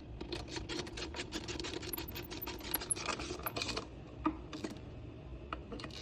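Hand ratchet wrench clicking rapidly while tightening the shifter bracket's bolts into a motorcycle starter, stopping about two-thirds of the way through, followed by a few isolated clicks of the tool.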